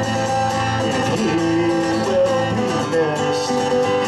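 Acoustic guitar played live, accompanying a song between sung lines.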